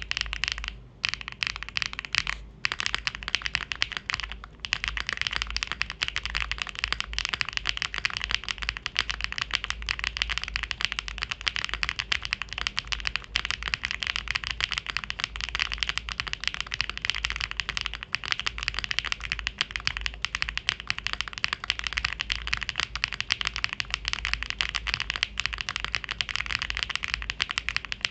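Fast, continuous typing on a mechanical keyboard with clacky HMX V2u switches: a dense stream of sharp key clacks. There are a few brief pauses in the first few seconds, then the typing runs on without a break.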